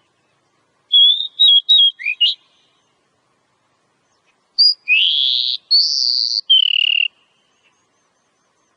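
Oriental magpie-robin (kacer) singing. About a second in comes a quick run of short whistled notes, then from about five seconds a phrase of longer, clear whistles: one rising, one high, one falling.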